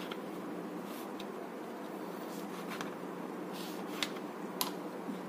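A knife cutting soft pav bread rolls on a metal plate: a few short, faint taps and crackles over a steady background hiss.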